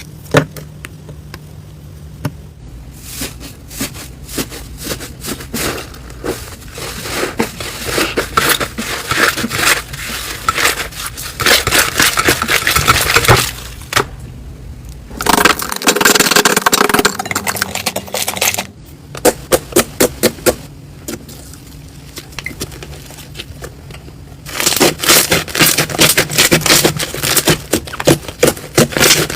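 Slime being squeezed and pressed by hand, giving rapid runs of crackling clicks and pops. The clicking comes in several stretches separated by quieter pauses.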